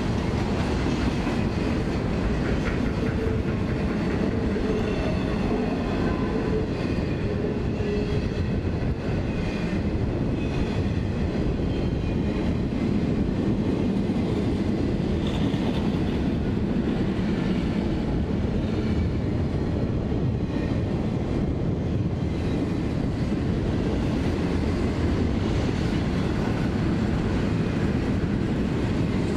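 Intermodal freight train passing at steady speed, its loaded trailer and double-stack container cars rolling by: the continuous, even noise of steel wheels on rail.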